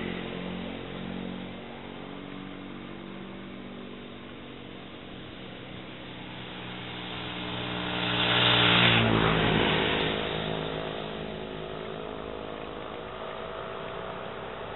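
Road traffic: motor vehicle engines running, with one vehicle passing close about eight to nine seconds in, loudest as it goes by, its engine note dropping in pitch just after.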